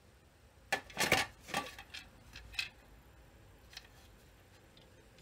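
A few clicks and clatters of hard plastic and metal parts being handled on a workbench, the loudest cluster about one second in and single clicks up to about four seconds in.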